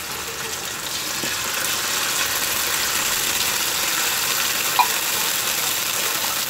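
Canned sardines in tomato sauce sizzling in a hot aluminium wok with sautéed onion, tomato and garlic, a steady frying hiss that grows a little louder about a second in. One short clink about five seconds in.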